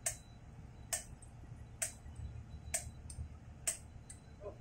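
A hammer striking a steel drift, five evenly spaced sharp taps about one a second, driving a part into a pump housing during reassembly.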